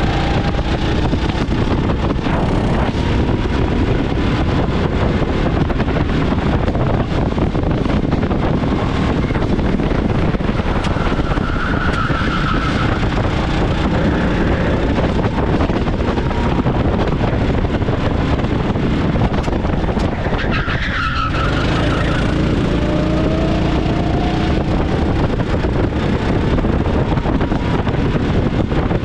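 A 390 cc go-kart engine running hard onboard, its pitch climbing as the kart accelerates, most clearly at the start and again from about twenty-two seconds in. The tyres squeal briefly about twelve and twenty-one seconds in.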